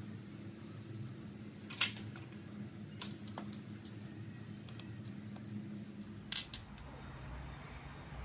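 A few sharp clinks of metal utensils against dishes over a steady low hum. The loudest comes about two seconds in, and two come close together near the end.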